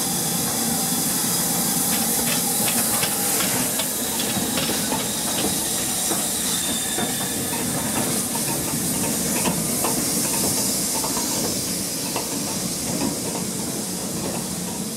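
Steady steam hiss while a train of passenger coaches rolls slowly past behind a steam locomotive, the wheels clicking over the rail joints for the first several seconds.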